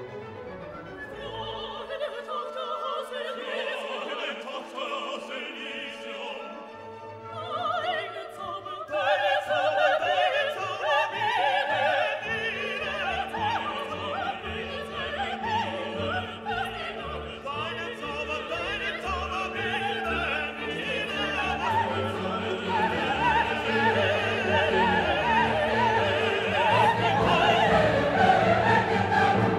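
Background classical music: an orchestra with operatic singing, quieter at first and swelling fuller and louder from about eight seconds in.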